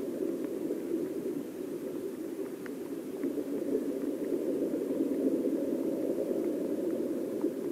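Steady, muffled rush of river water recorded by an underwater camera in its housing, with a few faint ticks.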